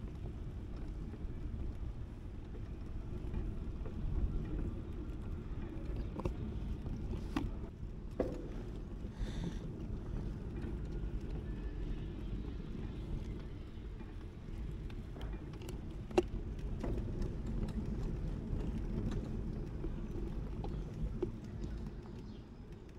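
Outdoor street ambience: a steady low rumble of wind on the microphone and background traffic, with a few scattered clicks and knocks.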